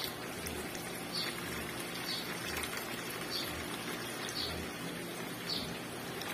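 Hot water pouring from a kettle into a stainless steel basin, a steady splashing stream. A short high chirp repeats about once a second.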